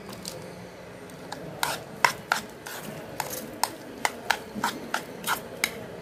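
Metal spoon stirring minced garlic in a ceramic bowl. From about a second and a half in it clinks and scrapes against the bowl about two to three times a second.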